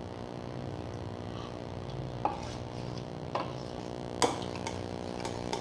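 Metal spoon stirring thick maida batter in a metal bowl, with three sharp clinks of the spoon against the bowl, the loudest about four seconds in. A steady low hum runs underneath.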